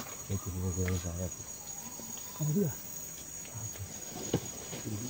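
Steady high-pitched drone of rainforest insects. A couple of brief low hums sound in the first few seconds, and a single sharp click comes about four seconds in.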